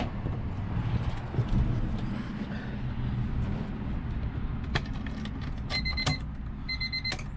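Car keys jangling and clicking into the ignition of a 2000 Honda Civic, then two short bursts of the dashboard warning chime beeping about a second apart, over rustling handling noise.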